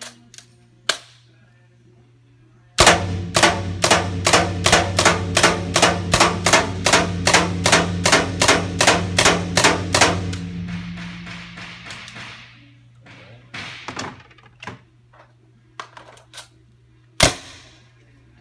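Magazine-fed paintball marker being test-fired: a rapid, even string of shots, about three a second for some seven seconds, then a hiss that fades away. A few light clicks and one more single shot follow near the end.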